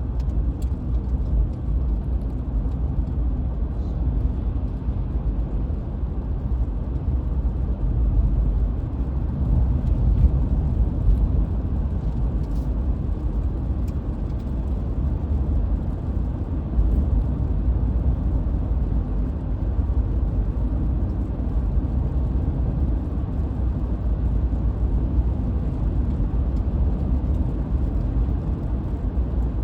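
A car driving at steady speed: a continuous low rumble of tyres and engine, with a few faint ticks.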